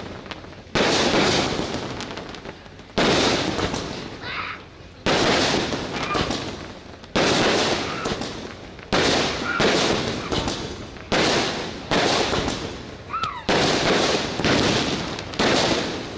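A series of sharp bangs, about eleven, one every one to two seconds, each trailing off in a crackling hiss over a second or two.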